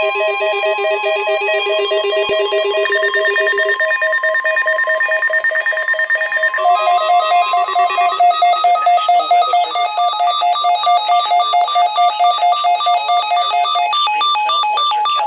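Synthesized electronic tones trilling rapidly back and forth between pitches, several at once, with the notes shifting every few seconds.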